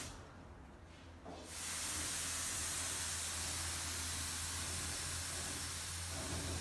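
Compressed air hissing from a radiator pressure-test rig. It stops at the start, comes back about 1.5 seconds in and then holds steady, over a steady low hum.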